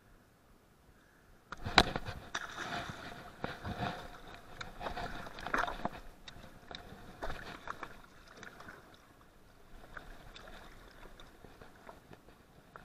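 A longnose gar being released into shallow water: a sudden splash about a second and a half in, then several seconds of splashing and sloshing with knocks, tapering into quieter rustling.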